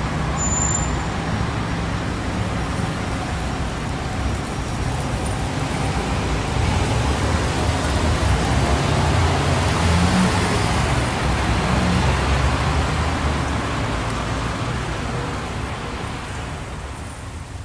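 Road traffic: the engines and tyres of passing vehicles, swelling to their loudest about halfway through and fading toward the end.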